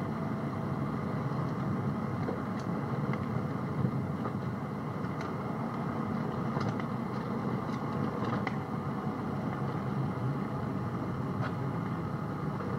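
Steady drone of a car's engine and tyres heard from inside the cabin of the moving car, picked up on a small dictaphone, with a few faint clicks.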